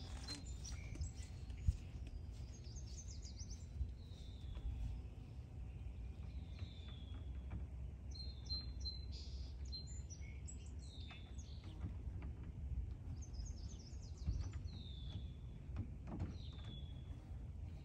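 Songbirds singing: a short downward-slurred note repeated every second or two, with higher twittering between, over a steady low outdoor rumble and a few light clicks.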